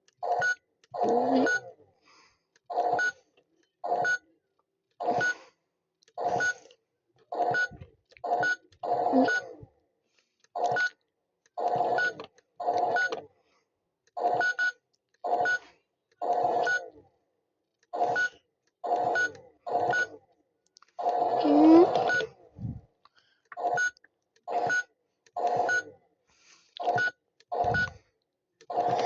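Toy washing machine's electronic sound effects: a long string of short beeps, about one a second, with silence between them. Once, about two-thirds of the way through, there is a longer warbling sound.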